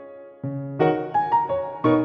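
Background music: a held chord fades away, then a new phrase of struck notes begins about half a second in and continues with several more notes.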